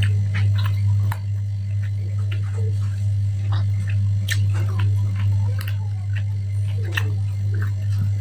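Close-miked chewing and mouth sounds of a person eating by hand, many small wet clicks scattered through, over a steady low hum.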